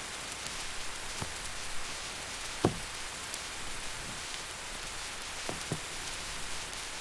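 Steady rain, with a few louder single drops or taps now and then, the loudest a little under three seconds in.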